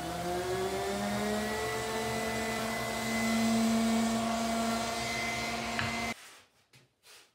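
Electric random orbital sander running on a hardwood cutting-board glue-up, its whine rising in pitch over the first second or two and then holding steady. It cuts off suddenly about six seconds in, followed by a few faint handling sounds.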